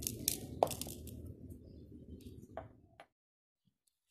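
Kitchen handling noises: a few sharp clicks and taps over a low steady hum, which cuts off abruptly about three seconds in, leaving near silence with a faint tick or two.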